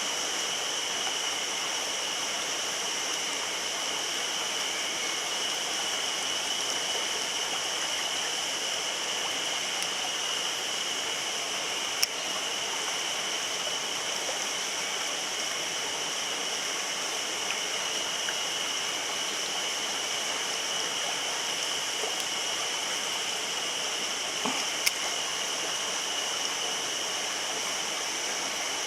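Mountain stream running steadily, a constant rushing hiss of flowing water. Two sharp clicks stand out, one about twelve seconds in and another about twenty-five seconds in.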